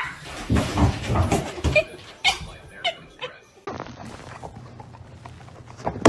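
A pet's short, high squeaky calls scattered among scuffling and knocking noises, most of them in the first few seconds.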